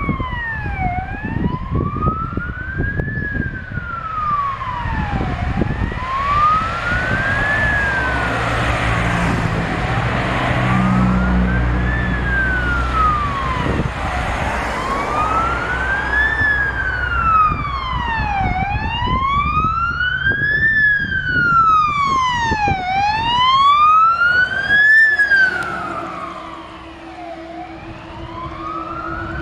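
Fire engine siren in a slow wail, rising and falling about every four and a half seconds, over the diesel engine of the Scania P370 water tender pulling away on an emergency run. The wail grows quieter near the end as the truck moves off.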